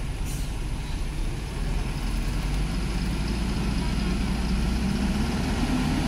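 Diesel engine of a wheeled mobile crane running steadily as it holds up a pole, its load building slightly about a second and a half in. A short hiss near the start.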